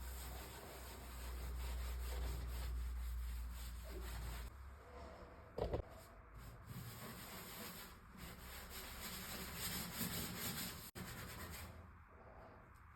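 Hand rubbing and sanding strokes on the cabinet's surface, part of faking wear and weathering on its finish. The texture changes abruptly a couple of times, and there is one short, louder bump near the middle.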